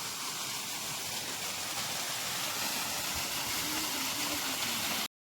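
Waterfall's water rushing and splashing as a steady roar, cutting off suddenly near the end.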